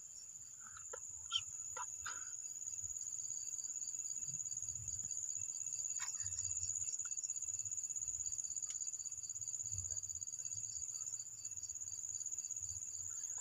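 Crickets trilling steadily, a high continuous trill that carries on throughout, with a few faint clicks about one to two seconds in.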